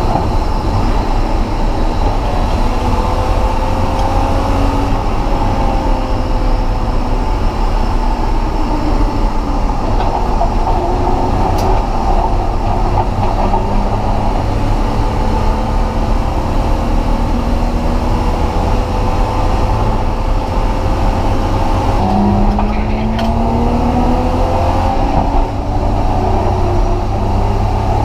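BMW E36 M3's straight-six engine heard from inside the cabin at track speed, its pitch climbing and dropping repeatedly as it is driven through the gears, over a heavy, steady rumble of road and wind noise.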